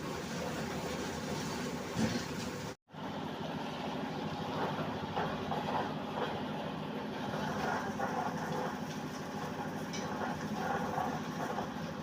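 Steady rumble of road-construction machinery running, with a knock about 2 s in and the sound cutting out for a moment just before 3 s.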